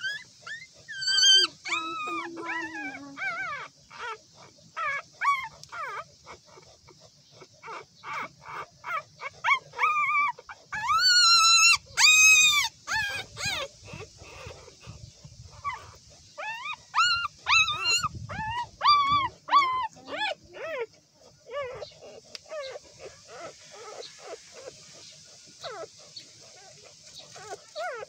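Newborn puppies squeaking and whining while they nurse: many short high cries in runs, with a loud drawn-out squeal about eleven seconds in and another cluster of cries a few seconds later.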